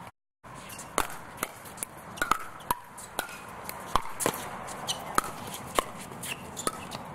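Pickleball rally: a quick series of sharp pocks as paddles strike the hollow plastic ball and the ball bounces on the hard court, a few every second. It begins about a second in, after a brief silent gap.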